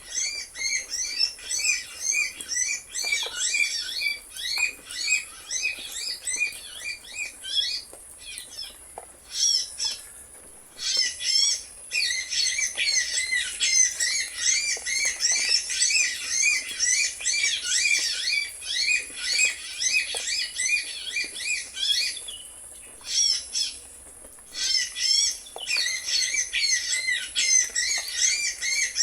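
Small birds chirping: dense runs of rapid, high, repeated chirps, with a few brief pauses.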